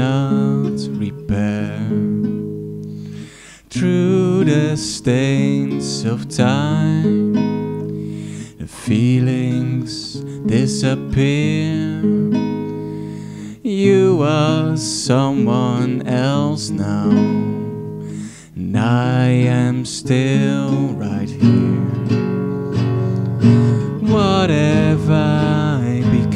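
A man singing a song while playing chords on a nylon-string classical guitar. The guitar is miked with an AKAI ADM-25 dynamic microphone and the voice with a DAP Audio PDM-25 dynamic microphone.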